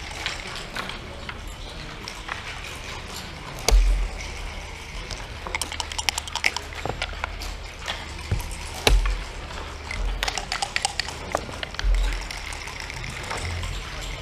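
Backgammon dice and checkers clicking and clattering on a wooden board, in quick runs of sharp clicks, broken by a few dull thumps.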